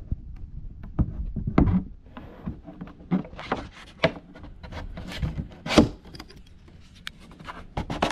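A foam model-aircraft wing being slid onto carbon spar rods and pushed home against the fuselage of an FX-79 flying wing: irregular knocks and clicks with scraping and rustling in between.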